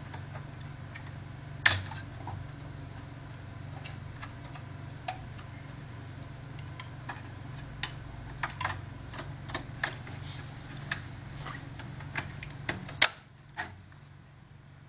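Irregular sharp clicks and taps from server hardware being handled, over a steady low hum that stops just after a loud click near the end.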